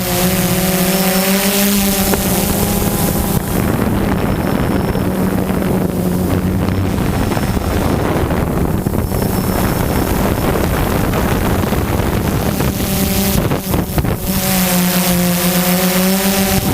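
DJI Phantom 2 quadcopter's motors and propellers humming with a steady low tone, with heavy wind rushing over the microphone. Through the middle the hum sinks under the wind noise, and it comes back strongly near the end.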